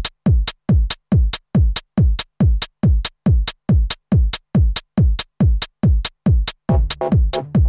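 Four-on-the-floor TR-909-style drum machine pattern from Ableton's 909 core kit: a falling-pitch kick on every beat, about 140 beats a minute, with a hi-hat on each off-beat. Near the end a sustained synth bass note joins the beat.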